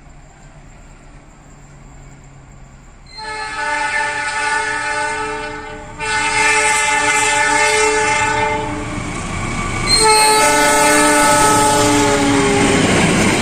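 Multi-note air horn of a KAI diesel locomotive sounding three long blasts as the express train approaches, the warning signal drivers give when running through a station. Near the end the rumble of the passenger coaches passing close joins the horn.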